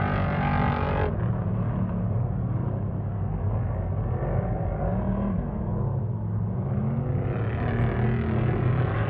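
Engine of an off-road race vehicle running, its pitch rising and falling with the throttle. The sound turns duller about a second in and brightens again near the end.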